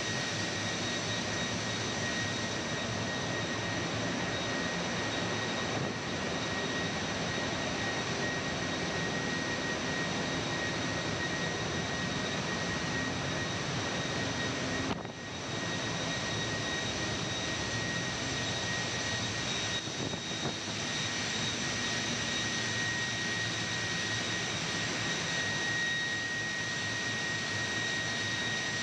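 Steady, dense machinery noise of a ship's engine room, with a constant high whine running through it.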